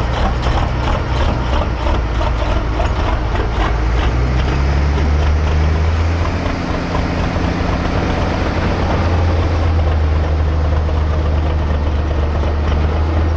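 Pro street semi truck's big diesel engine running: a pulsing idle at first, then rising in pitch about four seconds in and holding there as the truck drives off, black smoke puffing from its twin stacks.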